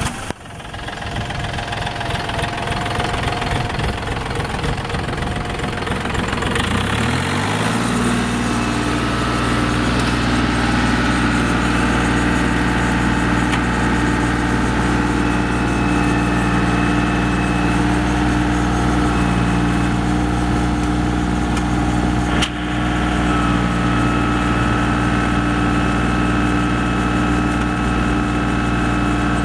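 John Deere 4300 compact tractor's three-cylinder diesel engine comes to life at the start and runs unevenly for about seven seconds. Its speed then rises and it settles into a steady, even run for the rest of the time.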